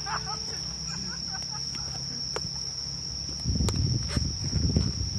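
A steady high-pitched insect trill, with a few sharp knocks, and gusty wind rumbling on the microphone from about three and a half seconds in.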